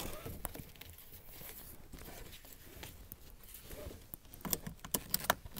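Seat belt webbing rustling and sliding as it is pulled out and wrapped around a steering wheel to tie it off, with a few light clicks near the end.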